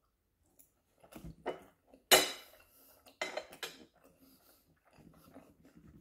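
Metal fork clinking against white plates. There are a few light clicks about a second in, one sharp ringing clink just after two seconds, which is the loudest sound, and more clinks around three seconds as the fork is set down. Soft chewing follows near the end.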